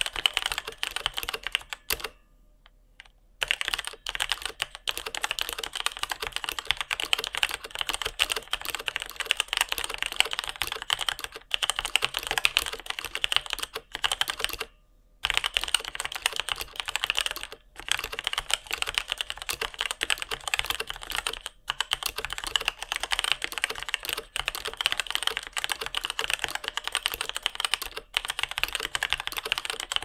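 Continuous typing on a Tecware Phantom 96 mechanical keyboard with Outemu Red linear switches: rapid keystroke clacks with a pronounced metallic ping. The typing breaks off briefly about two seconds in and again about fifteen seconds in.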